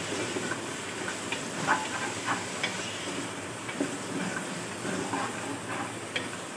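Mutton with chopped onions and tomatoes sizzling dry in an aluminium pressure cooker as a wooden spoon stirs it, the spoon knocking and scraping against the pot several times.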